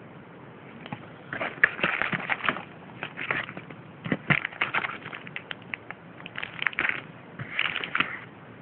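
Plastic wrapping and packaging crinkling and rustling in about five short bursts as the contents of a boxed camera are handled.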